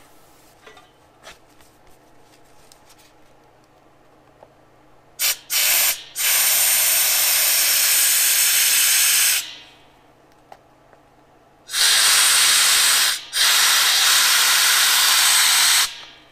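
Compressed-air blow gun hissing as air is forced between a fresh fiberglass cowl and its mold to release the part. Two short spurts about five seconds in, then a blast of about three seconds, and after a pause a longer one of about four seconds with a brief break.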